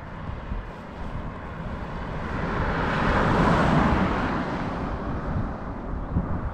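A road vehicle passes by, its noise swelling to a peak about halfway through and then fading.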